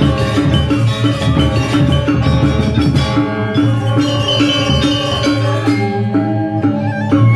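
Balinese gamelan music accompanying a dance: bronze metallophones playing fast, busy patterns over drums, continuous and loud.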